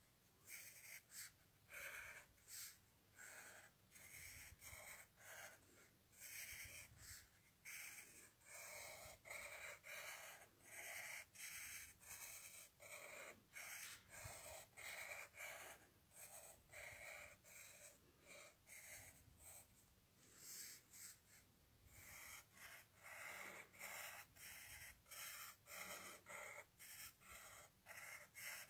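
Faint pen strokes scratching on paper, one short stroke after another as straight lines are drawn.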